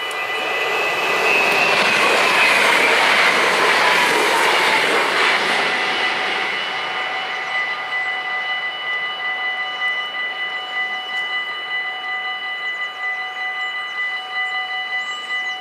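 Mechanical level-crossing bells ringing steadily, while an NS VIRM double-deck electric train passes over the crossing in the first few seconds. The train's rumble swells and fades, and a whine falls in pitch as it goes by.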